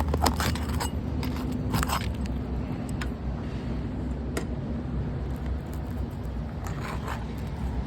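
Scattered sharp clicks and scrapes from a brittle, stuck-down roof shingle being pried at and cracking, over a steady low rumble.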